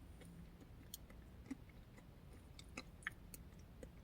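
Faint chewing of a spoonful of yogurt, oatmeal and granola parfait, with soft mouth clicks at irregular intervals.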